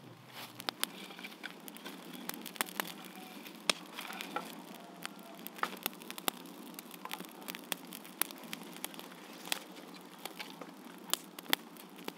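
A small campfire of dry sticks and leaves crackling as it catches, with frequent irregular sharp pops over a low steady hiss.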